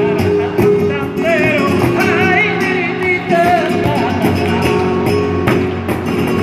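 Live flamenco music: a singer's wavering, ornamented vocal line over a flamenco guitar, with cajón and hand-clapping keeping the rhythm.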